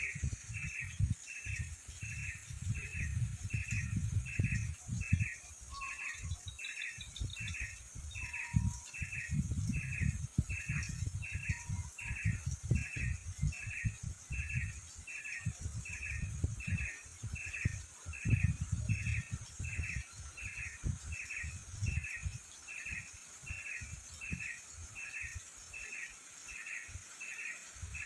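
A high chirping call repeated steadily, about three every two seconds, over an uneven low rumble.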